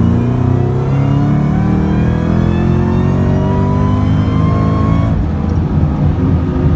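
Supercharged 4.6-litre V8 of a 2003–04 Mustang SVT Cobra (Terminator), heard inside the cabin on a full-throttle third-gear pull: the engine note climbs steadily in pitch for about five seconds, then breaks off into a lower rumble as the pull ends.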